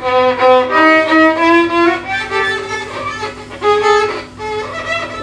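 Solo violin played with a bow: a short phrase of about a dozen held and changing notes that starts abruptly and breaks off near the end, over a steady low hum.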